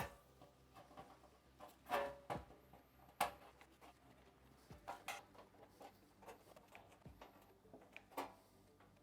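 Hand snips cutting short slits into a steel half-round gutter: a sharp snip every second or two, unevenly spaced, a few louder than the rest.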